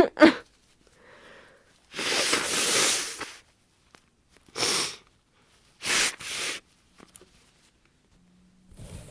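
A woman with a heavy head cold sneezing, sniffling and blowing her nose. There is a loud burst right at the start, a longer noisy one lasting over a second about two seconds in, and several short ones after.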